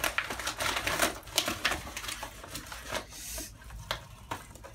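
Paper mailer envelope being handled and torn open by hand: irregular crinkling and rustling, with a longer tearing rip about three seconds in.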